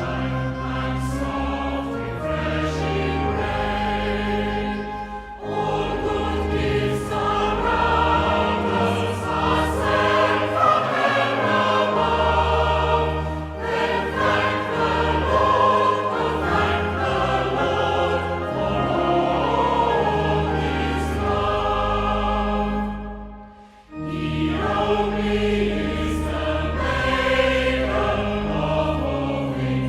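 Choir singing a hymn over a sustained accompaniment, breaking off briefly about three-quarters of the way through, as between verses, before carrying on.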